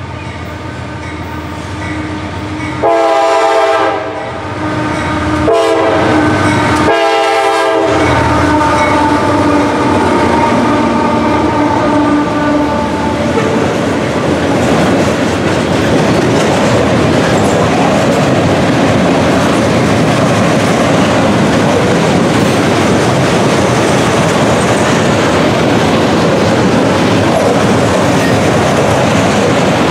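A CSX GE AC44CW diesel locomotive approaching with its engine running, then sounding its horn three times about three seconds in: a long blast, a short one, then another longer one. After that comes the steady rumble and clickety-clack of loaded coil steel flatcars rolling by.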